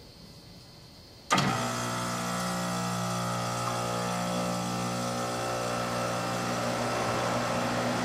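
Goodman DSZC18 heat pump's Copeland scroll compressor kicking on suddenly about a second in, then running with a steady hum. It is a very quick, quiet start with no laboring, helped by a newly fitted 5-2-1 hard start kit.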